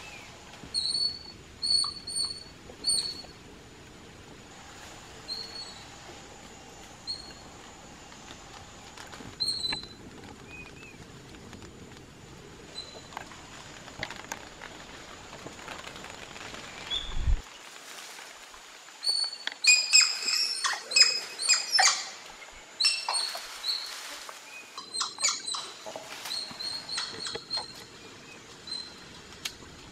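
Spider monkeys calling in the canopy with short, high squeaks, a few at a time at first. About two-thirds of the way through they break into a dense burst of overlapping squealing calls that then tapers off.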